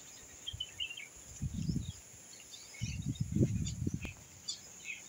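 Birds chirping now and then over a steady high insect drone, with two gusts of low wind rumble buffeting the microphone, about a second and a half in and from about three to four seconds in.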